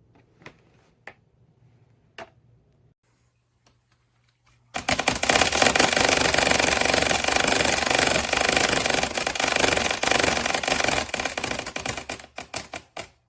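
A few light clicks, then, about five seconds in, the blades of a Pelonis 20-inch box fan start a loud, fast clatter as they strike something inside the grille. The clatter holds for about seven seconds, then breaks up into separate clicks that slow and stop.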